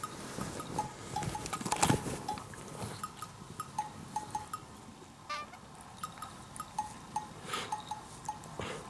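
Light background music of short, plinking bell-like notes, with soft licking and rustling of fabric as a cat grooms itself on a futon; the loudest rustle comes about two seconds in.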